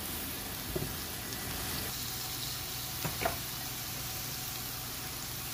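Chopped green beans, zucchini, tomato and onion sizzling steadily in a cast iron skillet, with two brief small sounds, one under a second in and one about three seconds in.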